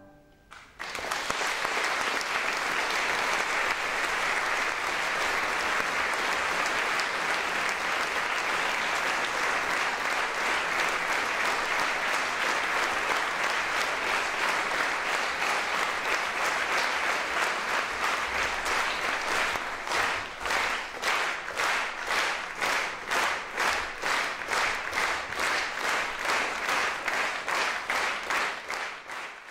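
Audience applauding, starting about a second in; about twenty seconds in the clapping falls into a steady rhythm in unison, about two claps a second.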